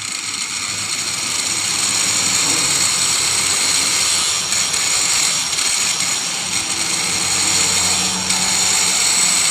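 Electric mixer grinder motor running steadily at high speed after its bush was replaced, the noise building slightly over the first couple of seconds and then holding even.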